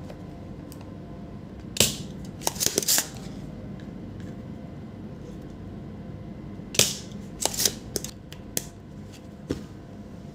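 Sharp clicks and knocks of electronics repair tools being handled on a bench: a few about two seconds in and another cluster about seven to nine seconds in, over a steady low hum.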